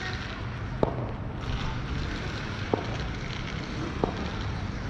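Steady background noise of an indoor cricket arena, broken by three sharp knocks spread across a few seconds.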